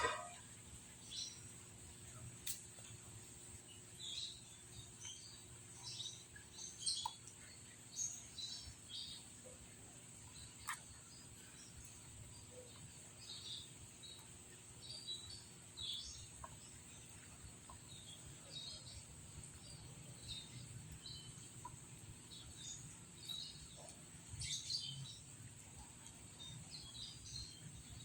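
Outdoor ambience: birds chirping in short scattered calls over a steady high insect drone, with an occasional faint click.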